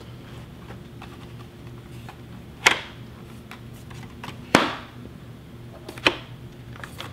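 Hard plastic clicks and knocks of a dual sport motorcycle helmet being handled while worn: three sharp clicks, the loudest about halfway through with a short ring, and a few faint ticks over a steady low hum.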